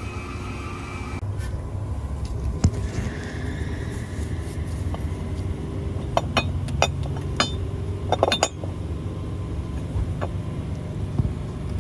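Metal clinks and knocks of an engine mount bracket being worked into place, a single clink about two seconds in and a cluster of sharp clinks past the middle, over a steady low hum.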